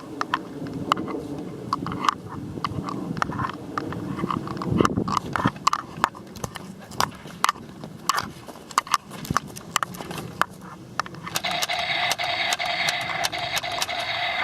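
Irregular light clicks and knocks, like footsteps and handling of gear. Near the end a steady buzzing hiss runs for about three seconds and cuts off suddenly.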